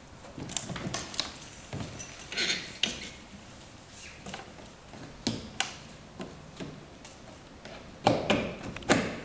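Irregular knocks and clatter of kayak outrigger tubes and fittings being handled and set in place, with two louder knocks near the end.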